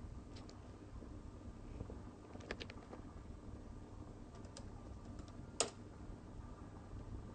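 A few scattered sharp clicks over a faint low rumble, the loudest click about five and a half seconds in.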